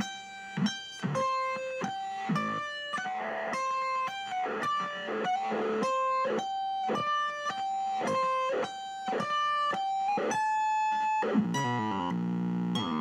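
Electric guitar playing a melody of single high notes, each one cut off sharply with a short gap before the next. Near the end it moves to lower, ringing notes that slide in pitch.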